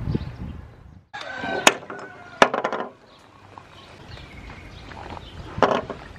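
Sharp plastic clicks and knocks as a PVC pipe and a PVC tee fitting are picked up and handled, with a few loud clicks about a second in and a smaller one near the end.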